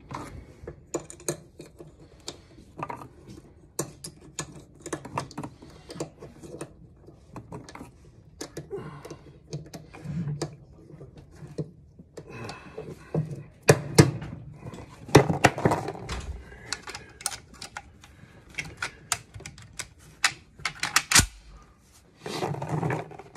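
Brass rifle cartridges clicking and clinking as they are picked out of a plastic ammo box and handled for loading: a long, irregular run of sharp metallic clicks, busier and louder after about the halfway point, with a heavier knock shortly before the end.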